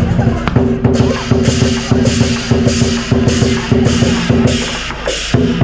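Lion dance percussion band playing a steady beat: drums with cymbal crashes about every half second over a steady ringing tone.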